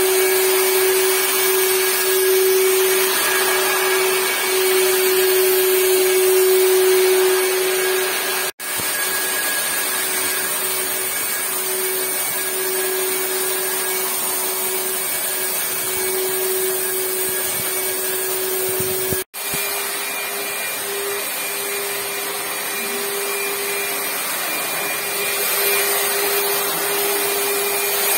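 Corded handheld electric disinfectant fogger running steadily: a constant motor whine over a rushing blast of air and spray. The sound breaks off for an instant twice.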